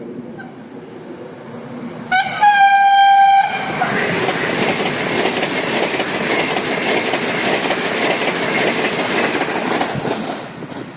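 Sapsan high-speed electric train (Siemens Velaro RUS, EVS1) sounding its horn, one loud blast of about a second and a half at a single pitch, then rushing past at speed with a steady roar of wind and wheel noise that fades near the end.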